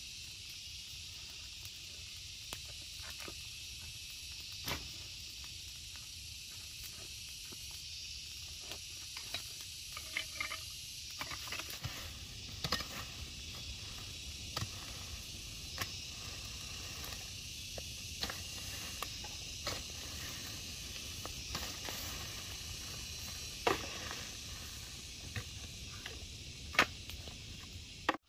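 A steady high hiss, like outdoor insects or background noise, with scattered light clicks, taps and rustles that come more often after about eleven seconds.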